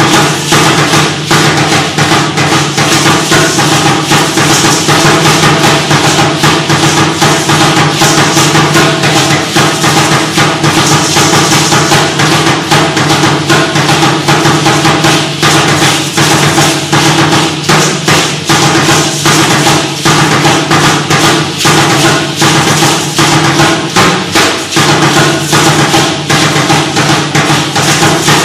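Tall upright Aztec huehuetl drum beaten in a fast, steady rhythm for the dance, with the shaking of the dancers' ankle rattles over it.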